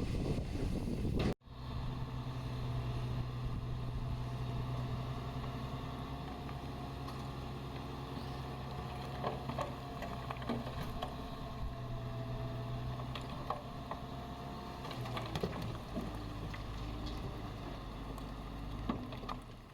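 Heavy construction machine's diesel engine running steadily, with scattered clanks. There is a brief break about a second in, and the engine note shifts slightly later on.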